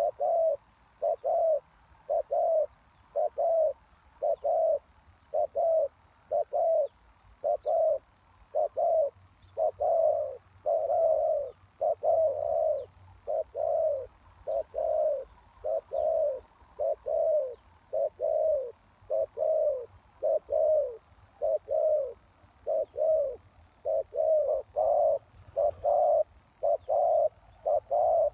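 Spotted dove cooing: a steady, unbroken string of short low coos, about one a second.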